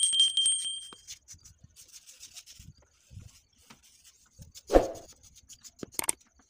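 Small metal hand tool scraping and scratching wet cement plaster in short, quick strokes as a relief design is carved into a wall. A steady two-tone electronic chime sounds in the first second, and there is one sharper knock a little before five seconds in.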